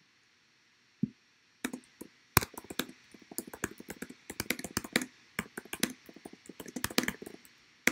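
Typing on a computer keyboard: quick, irregular keystroke clicks, after a single dull thump about a second in.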